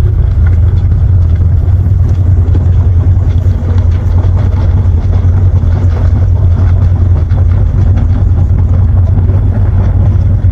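Leopard 2 tank's V12 diesel engine running steadily with a deep, even rumble.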